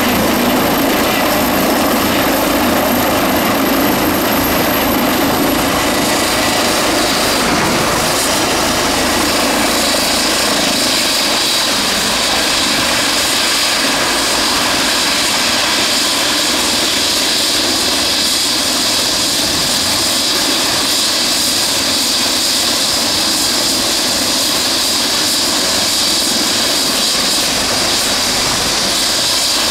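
Airbus EC135P-2 twin-turbine helicopter running on the ground just after touchdown, main rotor turning and turbines whining. The rotor noise is heavier for the first several seconds and then eases. A very high whine drops in pitch about six seconds in, and a steadier high whine holds for the rest.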